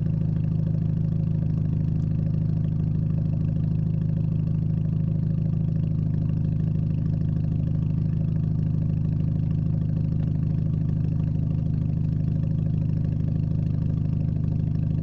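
Straight-piped exhaust of a Hyundai Genesis Coupe idling with a steady, deep drone.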